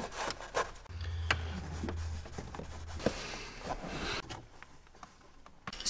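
Hands working a rubber shifter boot loose around the gear shifter: rustling of a rag, light scrapes and a few scattered small clicks of rubber and plastic being handled.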